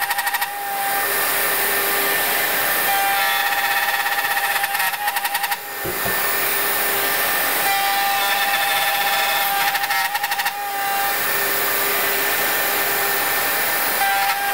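Bosch GOF 1250 CE plunge router running under load, cutting box-joint fingers in tulipwood through a jointing jig template. A short rattling judder comes about every five seconds as the cutter hits into the plywood backing board.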